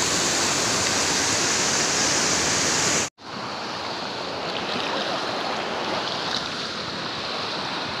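Whitewater cascade rushing steadily over rocks. About three seconds in it cuts off abruptly and gives way to a quieter, duller flow of shallow water running over a rocky streambed.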